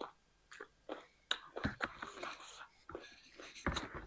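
A person eating close to the microphone: a series of short crunches and mouth clicks from biting and chewing, at uneven intervals.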